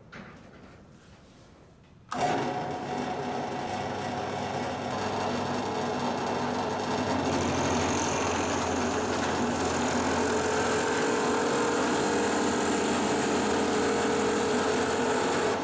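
An electric power tool's motor starts abruptly about two seconds in and runs steadily with a whine.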